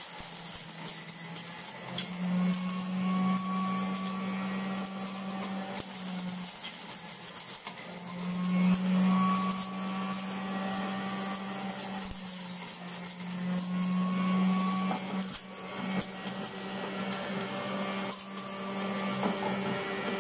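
A 400-watt electric juicer's motor runs steadily with a hum while pomegranate arils are pushed down its feed chute. The hum shifts slightly in pitch now and then, with scattered clicks over it.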